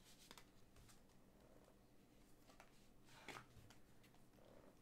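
Near silence, with a few faint clicks and rustles of a trading card being handled and slid out of its plastic holder; one slightly louder rustle comes a little past three seconds in.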